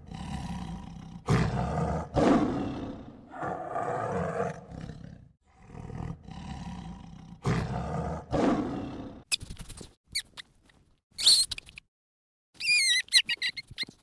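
White tiger roaring and growling in a string of calls, one after another, for about the first nine seconds. Then a young macaque's sharp clicks and high, rising-and-falling squeaks near the end.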